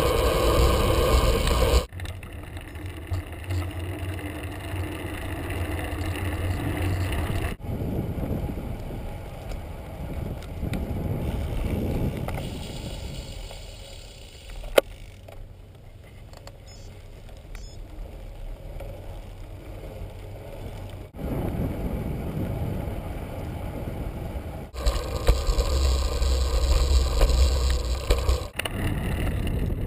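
Wind buffeting a bicycle-mounted action camera's microphone, mixed with the rumble of the bike's tyres on pavement while riding. The loudness changes abruptly several times, and there is a single sharp click about 15 seconds in.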